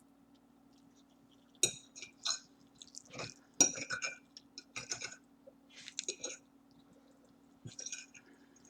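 Cutlery clinking and scraping against a plate in about six short clusters of clicks, over a steady low hum.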